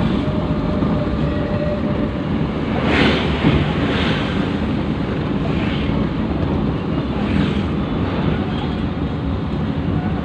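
Steady engine and road noise heard from inside the cabin of a moving vehicle, with wind on the microphone. A few brief swells of noise rise out of it at intervals.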